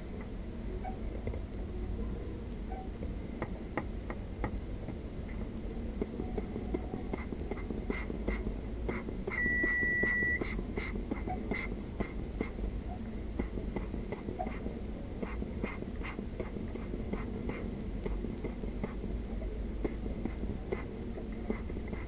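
Small brush scrubbing lacquer thinner over a graphics card's circuit board around the GPU and memory chips: a fast, irregular run of light scratching strokes from about six seconds in. A short beep sounds near the middle as the bench multimeter switches itself off.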